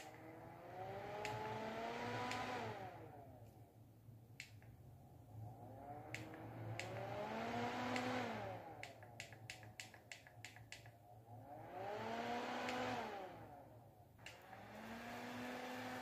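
Small battery-powered handheld USB fan whirring, its motor rising in pitch as it spins up and then winding down again three times, before settling into a steady whir near the end. Sharp clicks come between the spin-ups, with a quick run of them in the middle.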